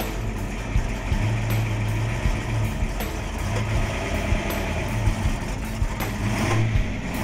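1970 Ford Mustang Boss 302's high-output 302 V8 idling with an uneven, pulsing note as the car creeps forward, getting a little louder near the end.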